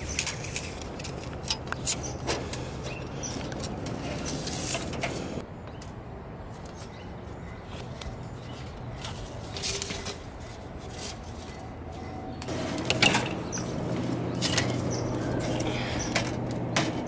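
Handling noise: scattered clicks, taps and rustling as a tape measure and heavy-gauge wiring are handled around an RV roof vent and access hatch.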